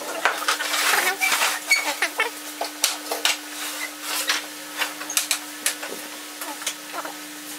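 Wooden folding reclining chair being folded up: a busy run of hard wooden clacks and knocks as the frame, slats and leg rest fold together, loudest in the first half, over a steady low hum.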